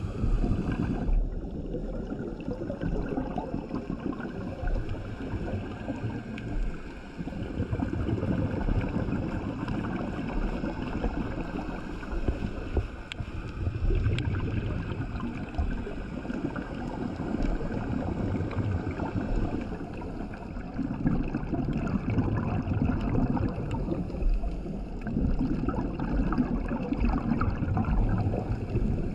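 Scuba regulator breathing heard underwater, with the diver's exhaled bubbles swelling in slow surges every several seconds over a steady background of water noise.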